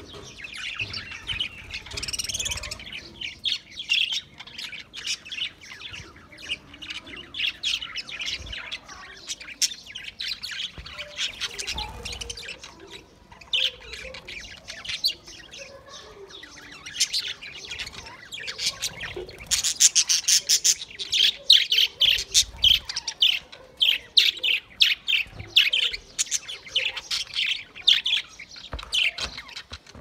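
A flock of budgerigars chirping and chattering without pause, many quick overlapping calls, growing busier and louder in the second half.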